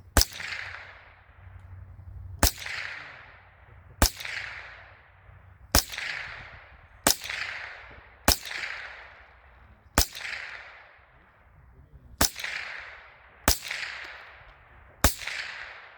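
Ten single shots from an RIA Imports TM22 semi-automatic .22 LR rifle, fired one at a time about one to two seconds apart, each a sharp crack followed by a fading echo.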